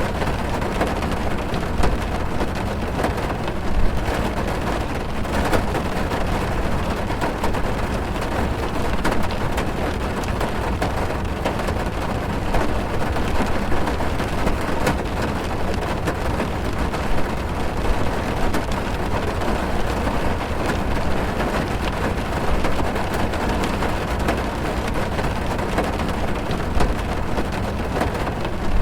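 Heavy rain falling on a car's roof and windows, heard from inside the cabin: a steady dense hiss with many small drop impacts.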